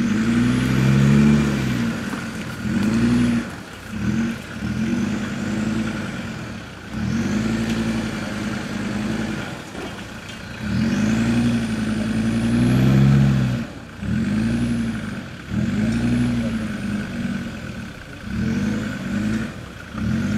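Land Rover Discovery Td5's five-cylinder turbodiesel revved hard in repeated bursts, about a dozen over twenty seconds, each rising and falling in pitch, as the truck works through deep mud. A high whistle rises and falls with each rev.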